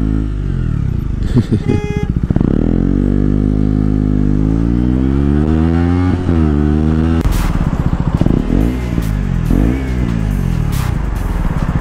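KTM Duke 125's single-cylinder engine through an Akrapovic exhaust, pulling hard with the pitch climbing steadily, then dipping as it shifts up about six seconds in. Later it drops down with short throttle blips and settles to an even idle near the end.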